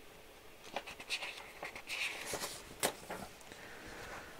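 A few light clicks and a soft rustle of small RC car kit parts being handled on a workbench, the sharpest click a little before three seconds in.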